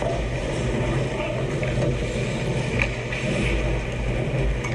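Ice hockey play on an indoor rink: skates and sticks on the ice over a steady low hum, with a few faint clicks.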